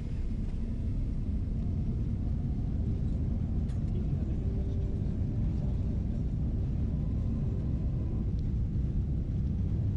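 Cabin noise inside a jet airliner accelerating along the runway at the start of its takeoff roll: a steady low rumble.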